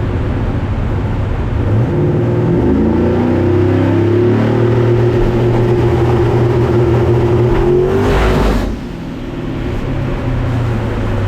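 Race car engine accelerating, its pitch climbing for about two seconds and then held at steady high revs. About eight seconds in, a short rush of noise comes as it lets off, and it drops to a lower, quieter run.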